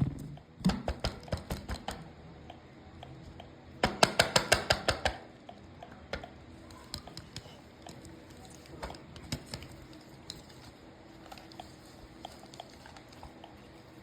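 Sharp plastic clicks from handling a small battery-powered toy: a handful in the first two seconds, a quick rattling run of about ten clicks around four seconds in, then scattered faint ticks.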